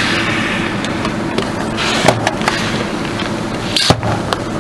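Car tyre rolling over full aluminium soda cans: a hiss of soda spraying from a burst can, then several sharp cracks and pops as the cans are crushed, the loudest near the end. A steady low engine hum runs underneath.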